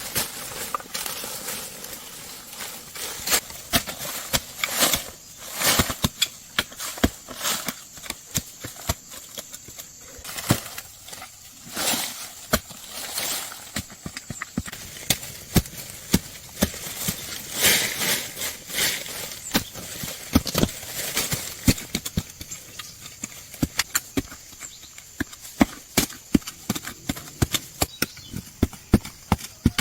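Irregular sharp knocks, scrapes and rustling from digging and handling potatoes in soil.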